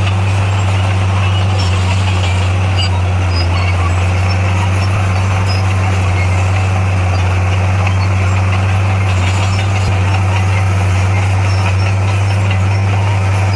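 Bulldozer's diesel engine running at a steady speed, a loud, even low drone that holds without change.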